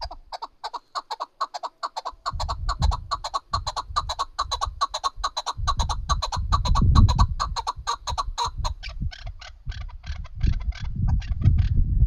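Chukar partridge calling: a long, rapid run of repeated clucking notes, several a second, that slows and thins out in the last few seconds. A low rumble runs underneath for much of it.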